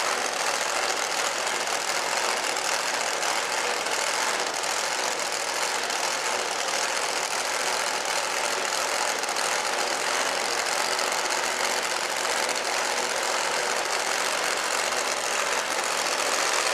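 Engine of a 2.6-ton two-wheel-drive pulling tractor running flat out through a pull. It is a steady, loud, unbroken noise with no audible rise or fall in revs.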